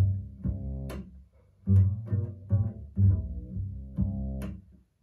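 Jazz ballad on a recording: an upright double bass plays a phrase of separate plucked notes, each dying away, with a brief pause about a second in.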